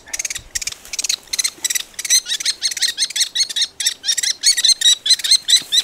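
Common kestrel nestling calling while being handled: a rapid series of shrill, repeated calls, about five a second, getting louder about two seconds in.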